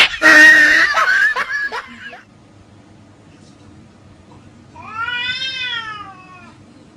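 A cat meowing: one long, drawn-out meow about five seconds in that rises and then falls in pitch. It follows a loud, harsh cry in the first two seconds.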